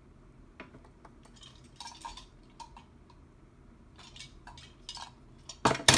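Small clicks and light clinks of little die-cast toy cars and their packaging being handled, with a louder burst of handling noise near the end.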